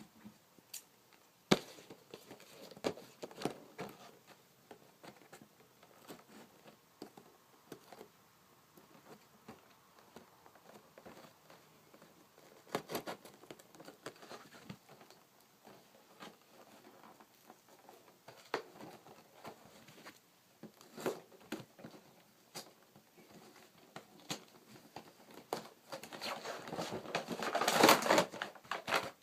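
Action figure packaging being opened by hand: scattered clicks, crackles and tearing of the plastic and cardboard, with a longer, louder spell of crinkling plastic near the end.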